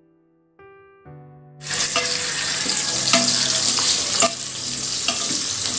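Soft background music, then about a second and a half in, sliced onions start sizzling loudly in hot oil in a Geek Robocook electric pressure cooker's pot on sauté. A wooden spatula knocks and scrapes against the pot about once a second as the onions are stirred.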